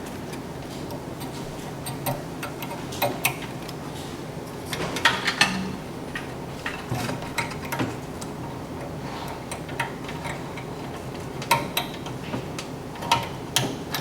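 Irregular small clicks and taps of wire connectors and metal parts being handled inside a microwave oven as its wiring is plugged back on, over a steady background hiss.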